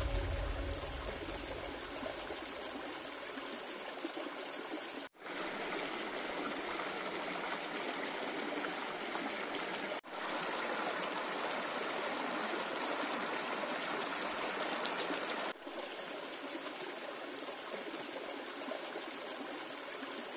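Small stream, partly iced over, running over rocks: a steady rush and babble of water. Its level steps up or down at three abrupt cuts. The last low notes of music fade out in the first couple of seconds.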